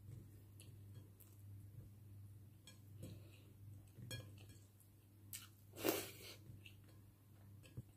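Quiet eating sounds: soft chewing and a few light clicks of chopsticks and fingers against a rice bowl, over a steady low hum. One short louder noise comes about six seconds in.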